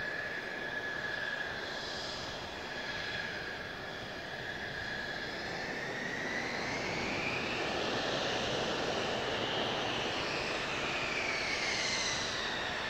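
Mitsubishi F-2 fighter's single F110 turbofan at taxi power: a steady jet whine over a rushing noise. About halfway through the whine rises in pitch and grows a little louder, then glides back down near the end.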